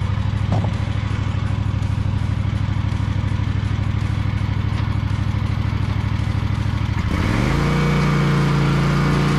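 Husqvarna V554 stand-on mower's engine running at a low steady idle. About seven seconds in, the throttle is opened and the engine rises to a higher, steady running pitch.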